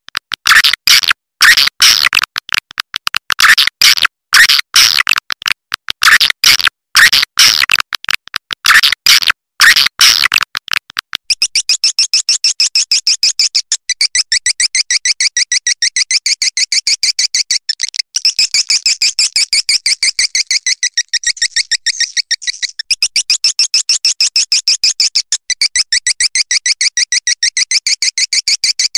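Swiftlet calling-sound track of the kind played to lure swiftlets: about ten seconds of loud chirps repeated in quick groups, then from about eleven seconds in a fast, even, high-pitched trill of rapid pulses.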